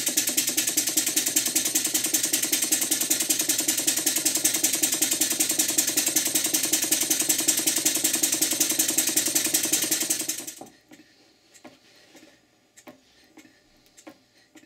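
Mary model beam engine running fast: its exhaust hisses in rapid, even beats, several a second, together with a mechanical clatter that includes a clunk the owner has not yet traced. It stops about ten and a half seconds in, leaving a few faint clicks.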